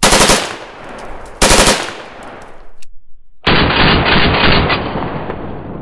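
Select-fire Beretta BM-59 battle rifle in 7.62 NATO firing full-automatic bursts from the shoulder: two short bursts about a second and a half apart, then, after a sudden silence, a longer burst of rapid shots lasting about a second.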